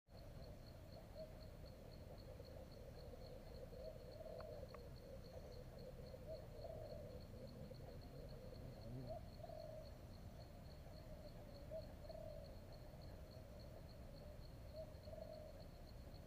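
Faint forest ambience: an insect trilling steadily on one high, finely pulsing note, over a low, wavering band of distant calls. Two faint ticks about four and a half seconds in.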